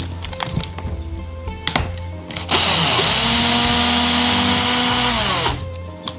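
Cordless electric screwdriver running for about three seconds to back out a screw, its motor whine dropping in pitch as it winds down; a few light clicks of the bit and screws before it starts.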